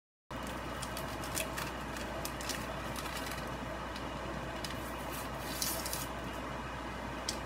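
A skillet of ground beef and pasta cooking on an electric stove, a steady noise that cuts in abruptly just after the start, with scattered light clicks and a couple of brief scrapes as it is stirred with a utensil.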